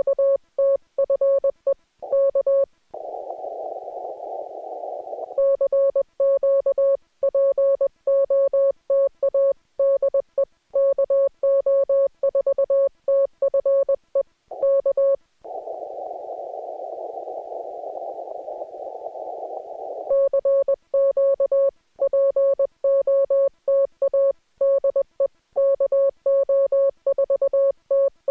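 Morse code (CW) keyed on an amateur radio transceiver: a single steady sidetone near 550 Hz switched on and off in dots and dashes. It breaks off twice for a few seconds of narrow-band receiver hiss while the radio listens between transmissions.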